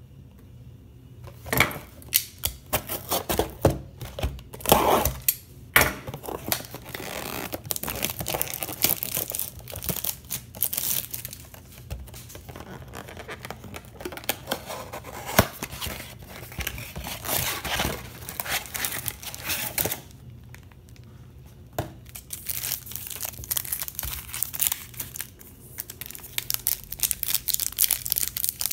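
A cardboard trading-card blaster box being torn open and its wrapped card packs handled: irregular tearing, crinkling and crackling, with a short lull about twenty seconds in.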